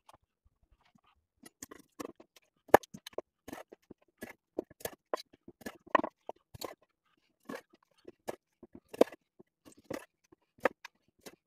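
Santoku knife chopping the tips off raw chicken wings, the blade cutting through the joints and knocking on a wooden cutting board: irregular sharp knocks, two or three a second, starting about a second and a half in.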